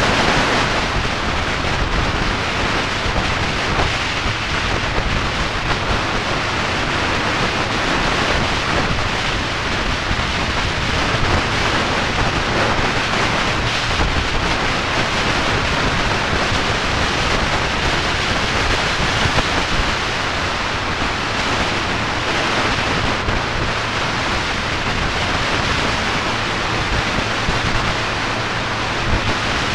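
Steady wind rush buffeting the microphone of a motorcycle ridden at a constant cruising speed, with the bike's running noise buried beneath it.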